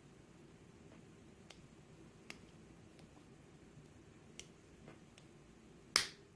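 Faint, sparse metallic clicks of a pick lifting the serrated pins and spools in an American 1100 padlock, then one sharper, louder click near the end as the spring-loaded core turns slightly into a false set.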